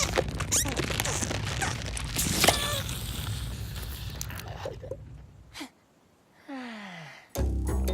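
Cartoon slapstick sound effects mixed with a character's wordless vocal noises, such as gasps, then a short gap and a falling, pitched tone; music starts just before the end.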